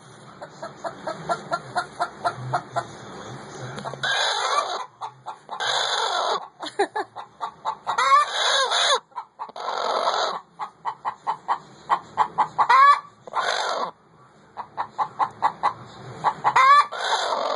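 Hen in a nest box calling while laying an egg: runs of quick, short clucks broken every couple of seconds by a loud, drawn-out squawk that sounds like "ow", about six in all.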